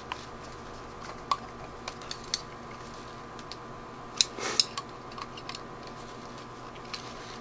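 Screwdriver driving the small screws that hold the choke plate to the choke shaft in a Rochester B one-barrel carburetor's air horn: scattered light clicks and ticks of tool and screw on the metal, a few louder ones about four seconds in.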